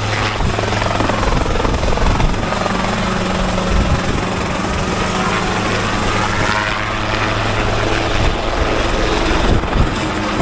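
Small light helicopter hovering low, its engine and rotor running steadily with a constant low hum under a wide rushing noise.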